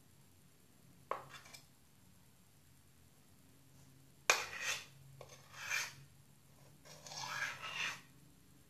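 A utensil scraping and knocking in a bowl as a flour slime mixture is stirred: a light scrape about a second in, a sharp knock about four seconds in, then two longer scrapes.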